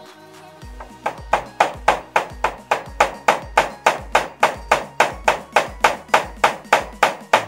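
Rapid, even hammer strikes, about three or four a second, beginning about a second in, over background music with a steady bass line.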